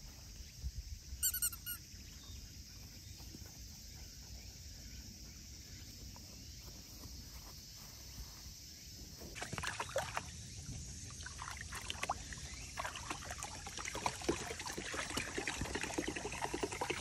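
For the first nine seconds only faint background, with one brief high-pitched squeak about a second in. From about nine seconds in, water splashes and sloshes irregularly as a Jack Russell terrier wades about in a water-filled plastic tub, with water trickling in, getting louder toward the end.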